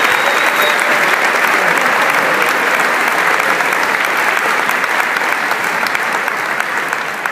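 Audience applauding steadily after a song, the clapping tapering off near the end.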